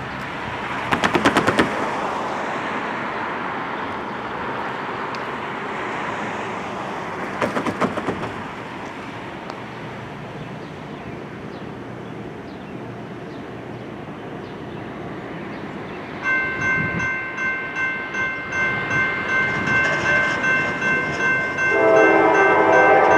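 Steady background noise with two short bursts of rapid clicking, then, about two-thirds of the way in, a grade-crossing bell starts ringing in regular pulses. Near the end the approaching Norfolk Southern GE AC44C6M locomotive's air horn comes in loud, a chord of several tones over the bell.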